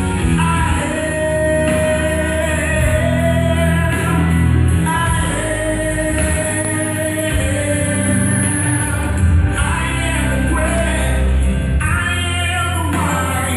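Gospel music: singing over a band with a steady bass line, carrying on without a break, heard through the room of a large church hall.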